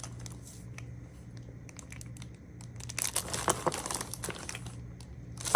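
Packaging crinkling and rustling as items are handled, busiest about three seconds in, with one sharp knock at the very end.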